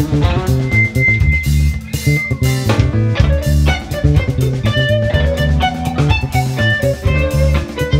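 Live rock band playing an instrumental jam: electric guitars over bass guitar and drum kit. A high note is held for about two seconds near the start, and a run of single high notes follows toward the end.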